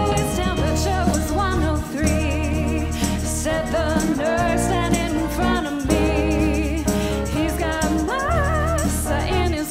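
Live pop-soul song from a stage musical: women singing with wide vibrato over a band with a steady bass line.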